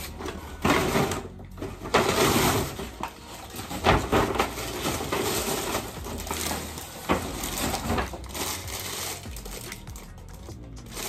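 Paper gift bag, brown wrapping paper and a plastic-wrapped package rustling and crinkling as they are handled and pulled apart, in irregular bursts with small sharp crackles.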